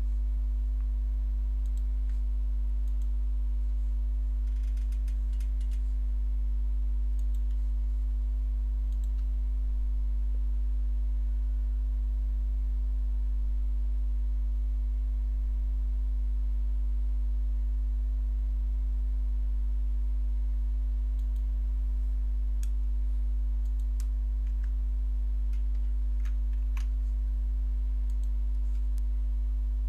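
Steady low electrical hum, with a few scattered computer keyboard keystrokes and clicks over it: a short cluster about five seconds in and several more near the end.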